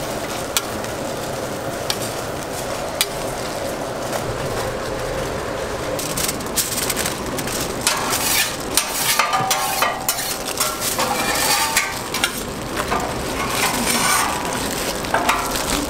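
Food sizzling on a flat-top griddle, then from about six seconds in, crackly rustling of plastic gloves and aluminium foil as a burger is handled and wrapped.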